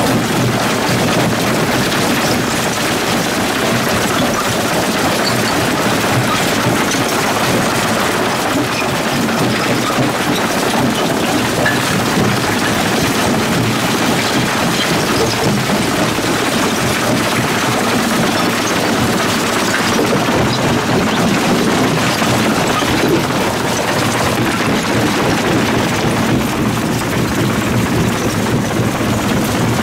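Lippmann 3862 single-toggle jaw crusher crushing quarry rock: a loud, continuous, dense clatter of stone cracking and knocking in the jaws.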